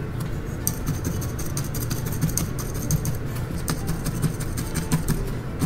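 A felting needle stabbing repeatedly into a tuft of wool on a brush felting mat, giving short, scratchy pokes several times a second that start about a second in.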